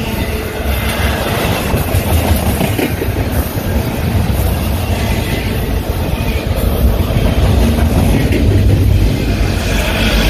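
Union Pacific freight train cars rolling past close by: a continuous heavy rumble with wheels clicking over the rail joints, building a little toward the end.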